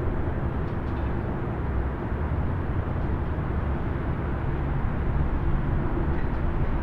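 Distant highway traffic: a steady low rumble of passing vehicles and tyre noise, with no single vehicle standing out.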